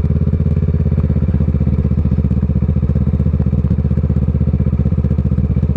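Kawasaki ER-6n's parallel-twin engine running at low, steady revs through a Scorpion aftermarket exhaust, its note pulsing evenly with no change in pitch.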